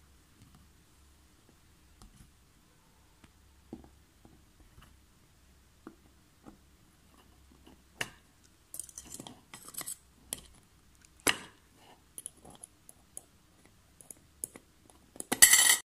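Clicks, taps and scrapes of a heated metal spoon being pushed and worked through a plastic can lid to open a coin slot. The first half holds only faint taps. Sharp clicks come about 8 and 11 seconds in, with scraping between them, and a short loud scrape comes just before the end.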